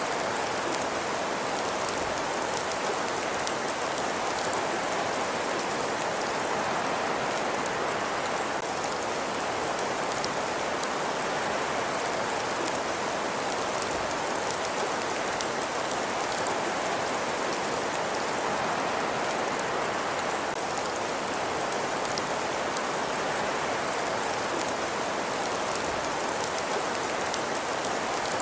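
Fireplace ambience: a steady hiss with constant fine crackling from the burning fire.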